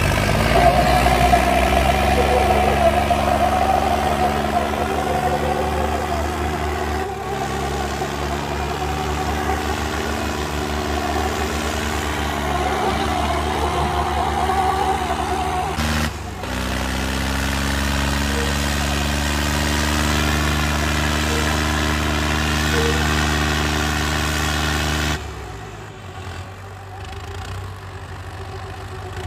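Diesel engines of a John Deere 5210 GearPro and a Swaraj 744 tractor running hard under load as the two pull against each other in a tug-of-war. The engine note breaks briefly about 16 seconds in, picks up again, and then drops off sharply near the end.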